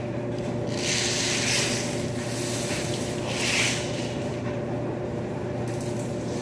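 Steady hum of running laundry machines, with three short rustling, hissing sounds from about one to four seconds in.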